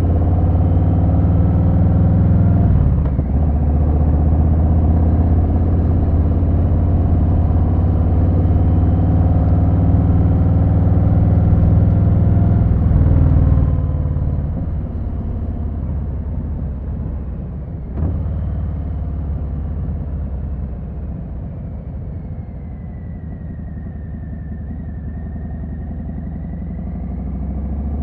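2020 Harley-Davidson Sport Glide's Milwaukee-Eight V-twin engine running steadily. It dips briefly about three seconds in, then drops to a quieter, lower level about halfway through, with a single click a few seconds later.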